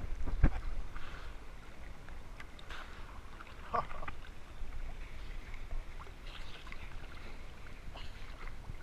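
Sea water lapping and sloshing against a waterproof action camera held at the waterline, heard as a low rumble with small clicks and gurgles. There are a couple of sharper splashes against the housing about half a second in.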